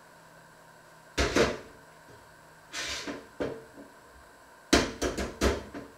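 Kitchen knocks and bangs as things are handled and put away: two knocks a little over a second in, a short rush of noise and a knock near the middle, then a quick run of four or five sharp bangs near the end.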